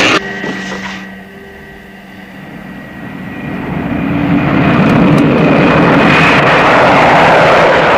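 Thunderbird 2's jet engines as it flies low overhead: a roar that builds over a few seconds and stays loud. Just before, a louder noise cuts off suddenly, leaving a fainter sound with steady tones.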